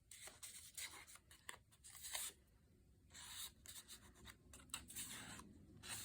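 Faint, intermittent rustling and sliding of paper as small paper tickets are handled in a journal pocket.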